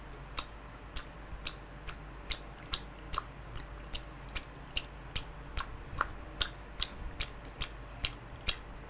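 Short, sharp clicks at a very even pace, about two and a half a second, over a faint steady hum.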